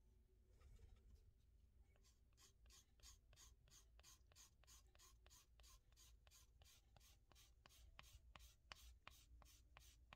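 A 400-grit sanding stick rubbed back and forth over a plastic model-kit part, sanding a gate nub down flush. Faint, quick, even scratching strokes, about four a second, which start about two seconds in.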